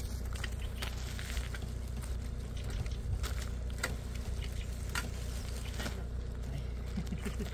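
Hydraulic floor jack being worked under a car, giving irregular light clicks and taps about once a second over a steady low rumble.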